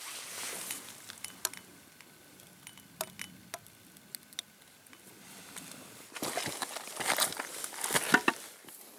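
Footsteps on loose river stones: boots crunching and knocking the rocks together in a quick run of steps, loudest near the end. Earlier come a light rustle and a few sharp, separate clicks.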